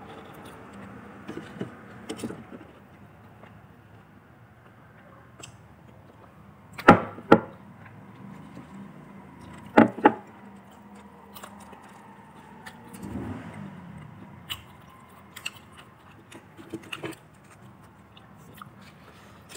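Close-miked eating of fried chicken: chewing and mouth sounds with scattered small clicks. Two pairs of sharp, loud clicks about seven and ten seconds in stand out.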